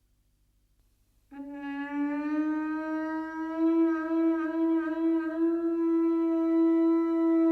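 A horn-like wind instrument sounding one long held note. It starts abruptly about a second in, bends up slightly at first and wavers a little in the middle.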